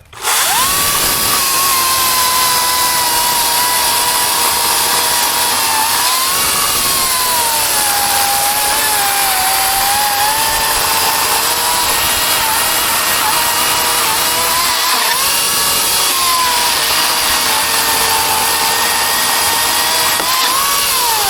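Atlas 80-volt brushless electric chainsaw cutting through wood. Its motor whine starts right away, sags and wavers in pitch as the chain bogs under load, and winds down with a falling pitch when it stops near the end.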